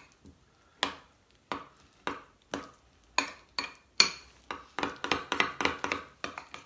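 Metal spoon clinking against a small glass bowl while stirring food colouring into ricotta cannoli cream. The taps come about every half second at first, then quicker and closer together for the last two seconds.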